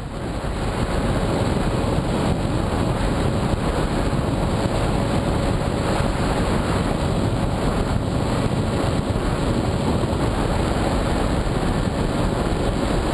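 Onboard audio from a camera riding on a Skywalker RC plane in flight: steady wind rush over the microphone, with a steady hum from the brushless electric motor and propeller.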